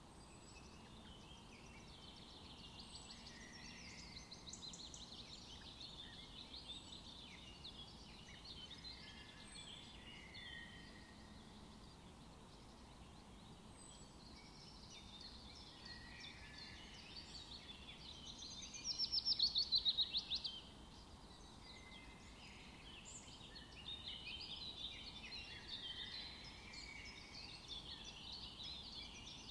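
Small birds chirping and calling continually, with one louder, rapid trill about two-thirds of the way through.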